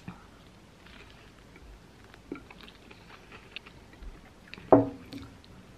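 Close-up mouth sounds of a person biting into and chewing a nori-wrapped sushi hand roll: a bite at the start, then many small wet clicks and crackles of chewing. About three-quarters of the way through, a brief vocal sound is the loudest thing.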